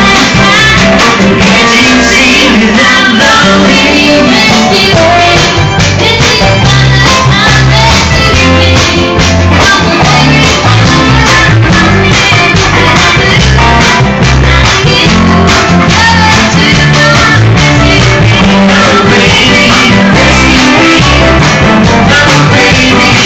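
Live band playing loud guitar-driven rock-and-roll with a singer, recorded on a phone close to full volume.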